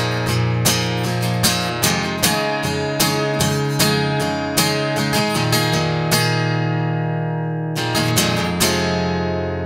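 Background music: acoustic guitar strummed in a steady rhythm, pausing after about six seconds, then a few more strums and a final chord left to ring and fade.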